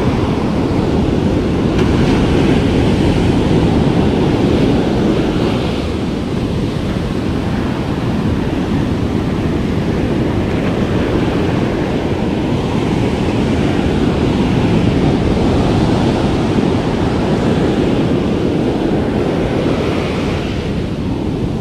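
Heavy ocean surf: strong waves breaking and foamy water washing up the beach, a steady loud rush without a break.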